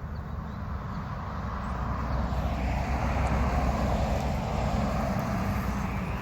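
Engine noise of a passing motor vehicle, growing louder from about two seconds in and then holding steady.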